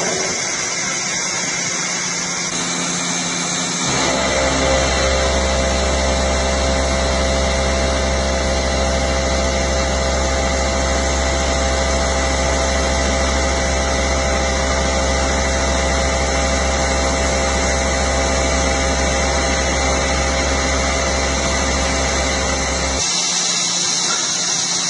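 Large industrial machinery running steadily with a continuous hiss. About four seconds in, a deep hum and a steady multi-tone whine start, and they cut off abruptly a couple of seconds before the end.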